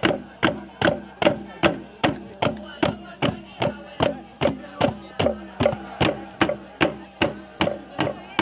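Wooden percussion struck in a steady dance beat, sharp even strikes about two and a half times a second.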